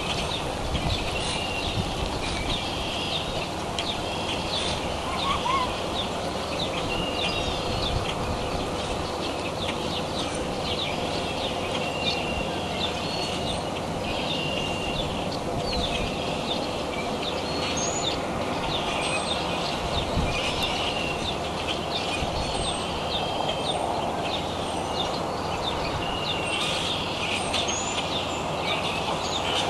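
Outdoor ambience with small birds chirping off and on in short calls, over a steady low background rumble.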